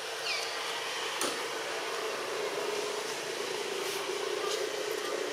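Steady background drone with a low hum, a brief high falling chirp near the start, and a couple of faint clicks.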